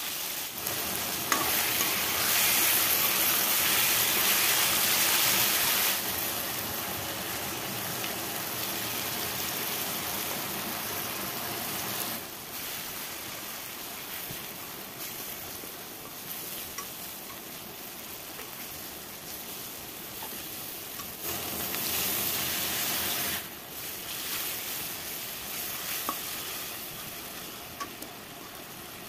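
Onion, tomato and spice masala sizzling in a hot metal wok while a metal spoon stirs it, scraping and now and then clicking against the pan. The sizzle grows louder for a few seconds near the start and again about three quarters of the way through.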